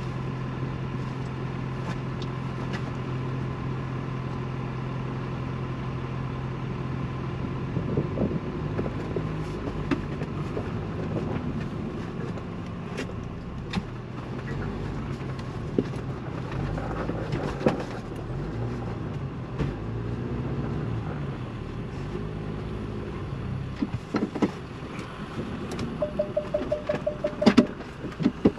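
Ford Bronco's engine running steadily at crawling speed, then rising and falling in pitch from about eight seconds in as it is worked over rock. Scattered knocks are heard throughout, and a short run of rapid beeps comes near the end.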